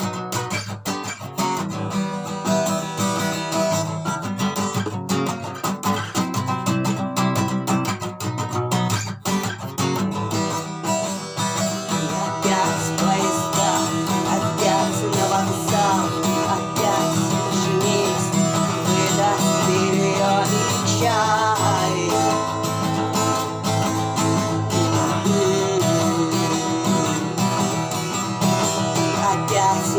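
Acoustic guitar being strummed. Sharp percussive strokes run through the first ten seconds, then the playing settles into fuller, sustained chords.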